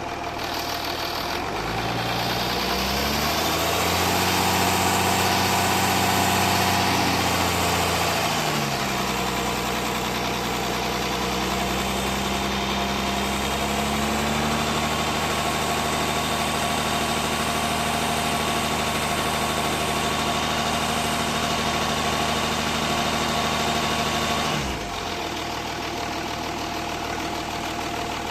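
Jaguar S-Type 2.7-litre V6 diesel engine running, revved up a few seconds in, held briefly, then let back down and run at a steady speed until its note drops away near the end. The owner suspects a bottom-end knock, possibly from spun bearings.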